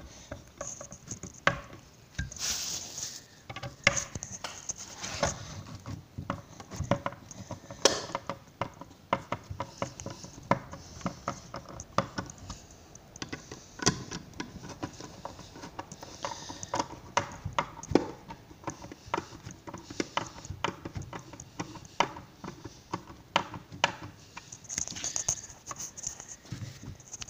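Irregular small clicks, taps and scrapes of a hand tool turning removal screws into a metal ECU casing to jack its glued lid off, with a short hiss a couple of seconds in and again near the end.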